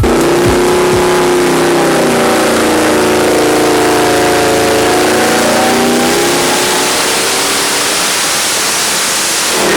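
Twin-turbo 428 Windsor Ford V8 running hard on an engine dyno, its pitch sagging a little and then climbing steadily through a pull, with a heavy rushing noise over the engine note.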